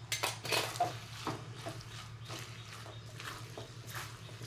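A silicone spatula stirring and tossing noodles in a metal wok: irregular scrapes and soft knocks against the pan, busiest in the first second and then sparser, over a low steady hum.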